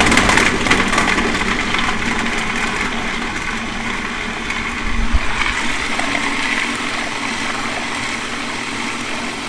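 Sammic commercial food processor running at full speed, its blade chopping whole carrots into mash for cold-press juicing. The sound is loudest as it starts, then settles into a steady churn, with a single knock about five seconds in.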